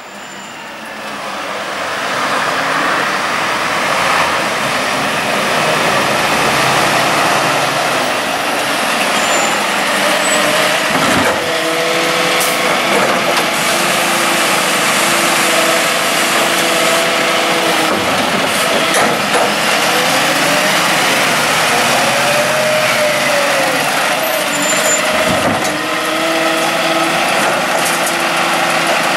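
Volvo side-loading garbage truck pulling up and working its automated bin arm. The engine and hydraulic whine rise and fall as the arm lifts, tips and lowers a wheelie bin. A few sharp bangs and air-brake hisses come about eleven, nineteen and twenty-five seconds in.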